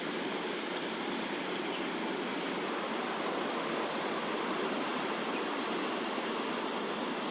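Steady, even rushing background noise that does not change, with no hawk calls.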